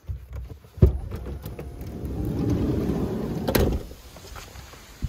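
Minivan sliding door unlatched with a clunk about a second in, then rumbling open along its track for a couple of seconds and stopping with a click.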